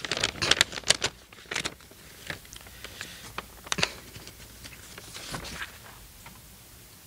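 Manila paper envelope being opened and a letter pulled out of it, crackling and rustling close to a microphone: a dense flurry of sharp crinkles in the first couple of seconds, then sparser rustles.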